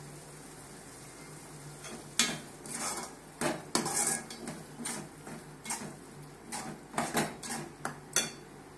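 A steel ladle stirring thick curry gravy in a metal pot, scraping and clinking metal on metal in irregular strokes from about two seconds in. A steady low hum runs underneath.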